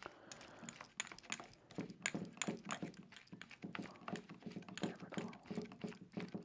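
Light, irregular clicks and taps of a carbon fiber tripod's leg section being taken apart by hand, as the leg lock grip is unscrewed and the section and its small parts are handled.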